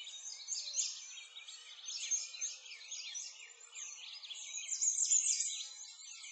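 A dense chorus of many small birds chirping, their short, high calls overlapping one another.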